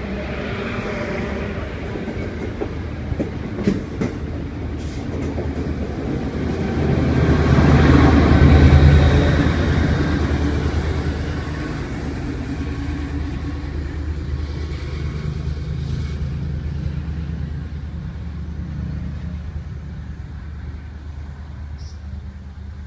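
Cape Flyer passenger train passing by: a diesel locomotive's low engine rumble and the rolling of the rail cars. It swells to its loudest about eight or nine seconds in, then slowly fades as the train moves away.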